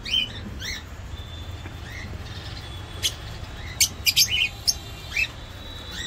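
Small aviary birds, cockatiels among them, chirping: scattered short calls, then a quick run of sharper, louder chirps from about three seconds in, over a low steady hum.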